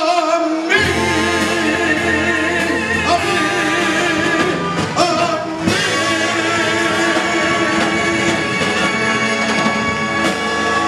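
Male singer with a live band holding the long closing notes of a song with wide vibrato over a sustained band chord. A new long held note begins about halfway through and carries on until near the end.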